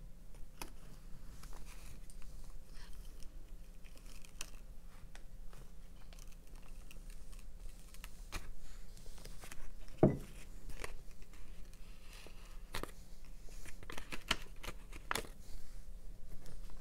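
Craft handling noises: scattered small clicks, rustles and crinkles as rhinestone mesh ribbon is wrapped around a plastic bottle and paper backing is handled, with one louder thump about ten seconds in.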